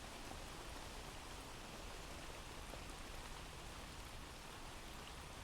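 Faint, steady rain ambience: a recorded rain sound effect playing without a break.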